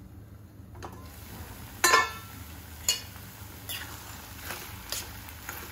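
Steel spoon stirring pasta in a metal kadhai: one loud metal clank about two seconds in, then short scrapes and clinks against the pan a little under a second apart.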